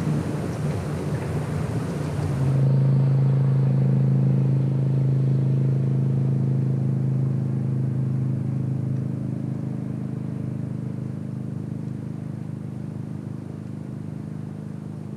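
A powerboat's engine droning steadily as it passes, loudest a few seconds in and then slowly fading away. Before it comes in, a rushing noise of wind and water.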